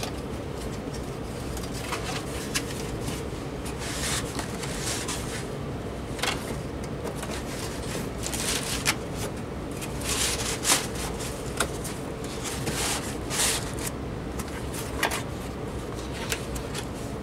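Handling noise from a cordless phone's cardboard box and its plastic packaging as parts are put back in: rustling and sliding, with scattered light clicks and knocks, over a steady low hum.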